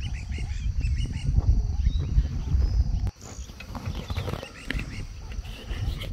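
Outdoor ambience: short high chirping animal calls over a low steady rumble. The sound breaks off abruptly about three seconds in and comes back quieter, with a few more chirps.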